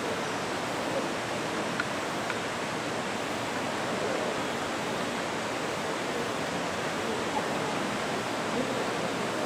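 Steady rushing noise of an N700A Shinkansen train coming through the tunnel toward the station, growing a little louder about four seconds in.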